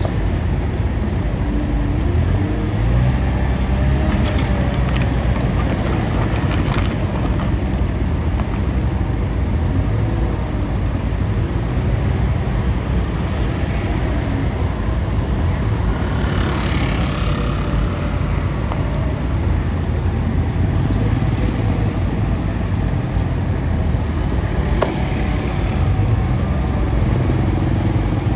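A vehicle engine running steadily with a deep low rumble, and a short burst of hiss a little past halfway.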